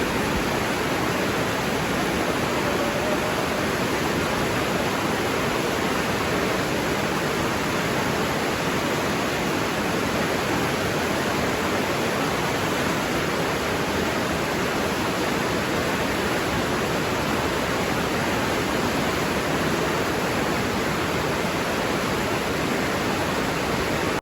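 Water rushing steadily, an even, unbroken rush with no changes.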